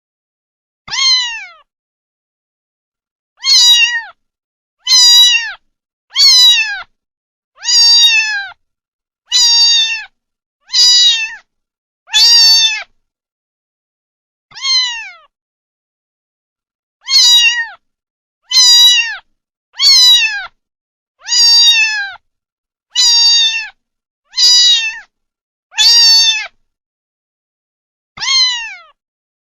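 Kitten meowing over and over: about seventeen short, high-pitched meows, each falling in pitch, mostly a second or so apart, with two longer pauses.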